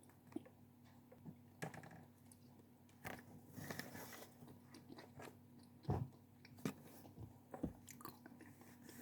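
Close-up chewing and biting of sweets and snacks, with scattered crunches; the loudest comes about six seconds in.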